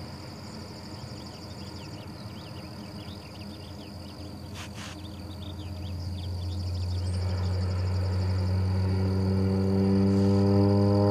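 Single-engine agricultural spray plane approaching, its engine and propeller drone growing steadily louder through the second half.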